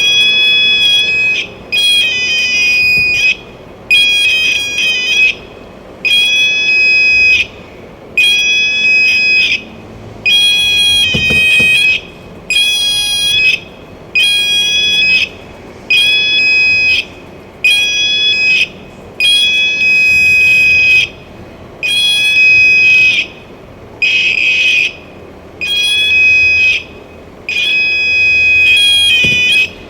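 Garrett metal detector's alert tone beeping over and over: long, high two-pitch beeps about every two seconds with short gaps, the signal that metal has been detected.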